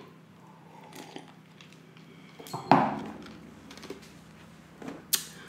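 A plastic drinking cup set down on a tray with a single knock, followed near the end by a couple of light clicks of handling.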